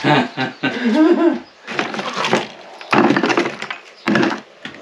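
Broken lime plaster and old wooden lath debris being scooped up by gloved hands and dropped into a rubber bucket: three bursts of crunching and clattering rubble.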